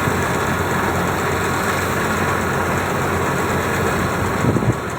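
Harvest machinery engine running steadily, with a short louder low burst near the end.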